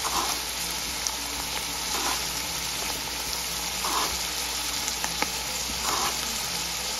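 Diced vegetables sizzling in butter in a large stainless steel pot while uncooked rice is poured in on top, with a couple of light clicks.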